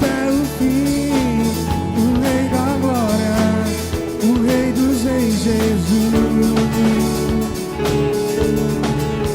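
Live worship band music: guitar and drums under a melodic line that bends and glides in pitch, in a passage without words.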